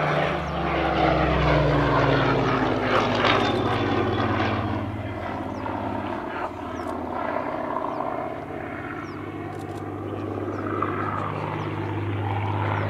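Supermarine Spitfire LF Mk.Vb's Rolls-Royce Merlin V12 engine and propeller in flight overhead. The engine note drops in pitch over the first few seconds as the aircraft passes, fades somewhat in the middle, and swells again near the end.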